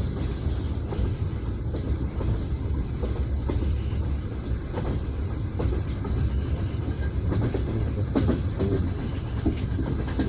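Passenger train wheels running on the rails, heard inside an open-plan sleeping carriage: a steady low rumble with a few sharp clicks and knocks from the track, most of them in the second half.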